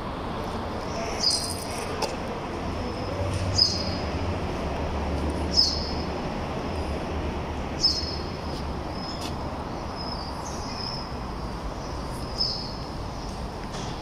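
A small bird chirping: a short, high chirp that drops slightly in pitch, repeated about every two seconds over a low steady rumble.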